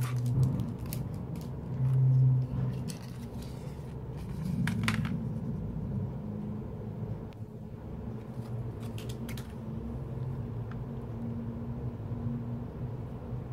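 Plastic CD sleeves and jewel cases being handled: rustling and scattered light clicks of plastic, over a steady low hum.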